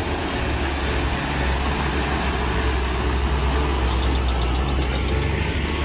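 Toyota Dyna dump truck's diesel engine pulling up a steep incline as it passes close by, a steady low drone.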